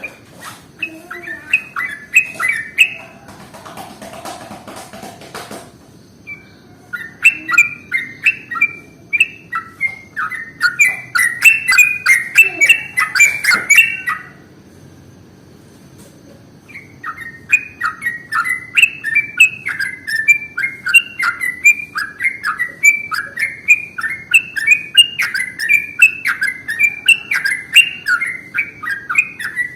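Yellow-vented bulbul (trucukan) singing fast, chattering runs of short bubbly notes, played as a lure call to draw other trucukan into song. The song comes in three bouts, with gaps about 3 seconds in and about 14 seconds in.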